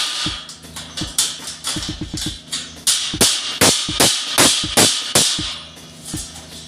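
Metal cable tray being knocked and handled while it is bent to 90 degrees: a run of sharp metallic taps and clanks, a quick cluster about two seconds in, then louder strikes about three a second through the middle.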